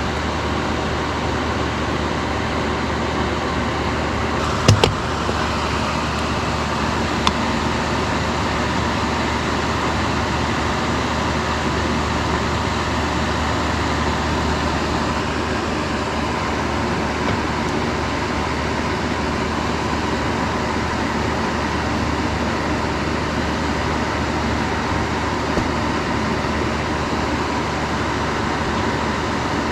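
Electric fan running with a steady whoosh and low hum, with a couple of sharp clicks about five and seven seconds in.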